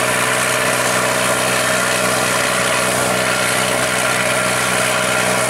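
John Deere 330 combine harvester running steadily while harvesting, its engine hum holding one even pitch under a steady hiss from the working machinery.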